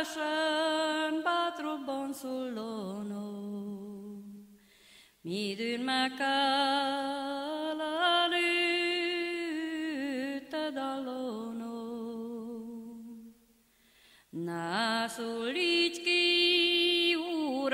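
A woman singing a slow Hungarian Csángó folk song unaccompanied, in long held phrases with a wavering vibrato, broken by two short pauses for breath.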